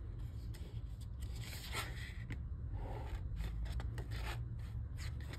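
Pages of a paper album photo book being turned by hand: several short papery swishes and rubs as the sheets slide past each other.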